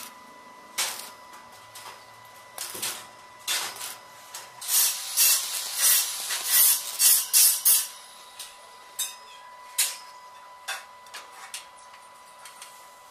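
Stick (arc) welding: the electrode arc crackling and spitting in short tack welds on square steel tubing, with a longer, louder run of crackle about five to eight seconds in and short pops and crackles of brief arc strikes before and after. A faint steady high tone sits underneath.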